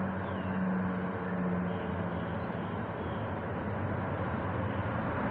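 Road traffic: a vehicle engine running steadily with a low hum beneath even road noise.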